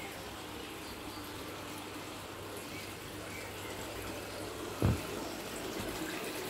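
Garden water feature trickling steadily, with a single dull thump about five seconds in.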